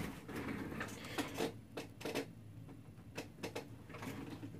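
Faint room tone with a low steady hum and a few scattered small clicks.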